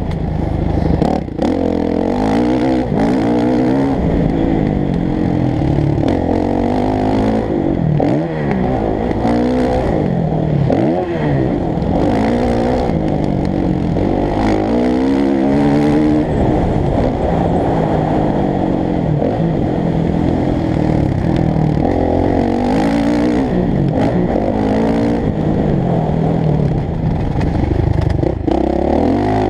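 Motocross bike engine revving hard and easing off over and over, its pitch climbing and dropping as the rider works the throttle and gears around a dirt track. It sounds muffled through the GoPro, with little above the low and middle range.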